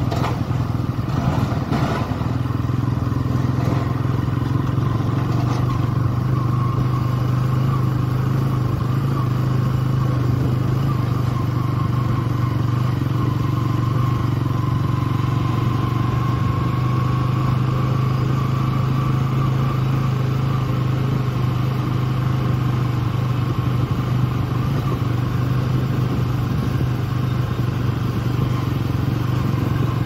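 Motorcycle engine running steadily while riding, its steady low drone unbroken throughout, with a faint whine that rises a little midway.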